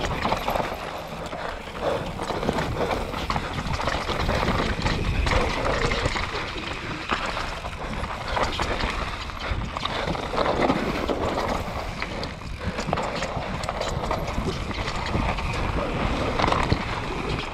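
Mountain bike descending a dry, rocky trail at race speed: tyres crunching and skittering over loose stones and rock, with a continual rapid clatter of the bike jolting over each rock. A low rumble of wind runs on the microphone underneath.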